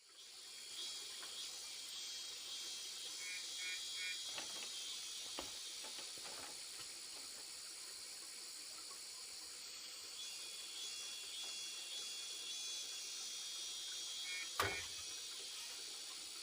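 Steady high hiss of outdoor background noise, with a few faint knocks and short chirps.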